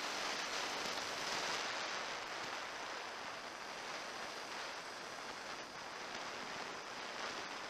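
Flowing creek water: a steady, even rush with no separate splashes or knocks.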